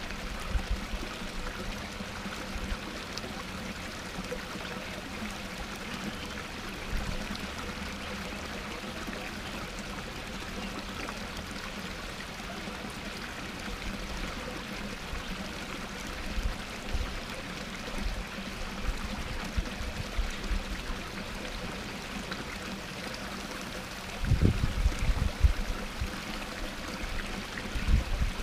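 Small waterfall splashing steadily over rocks into a backyard pond. Low rumbling thuds come in near the end and are the loudest part.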